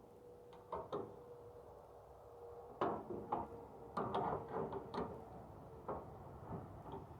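Irregular metal clicks and clunks of a wrench turning the sawmill's belt tensioner adjuster, tightening the new drive belt, with a quick run of clicks about four seconds in.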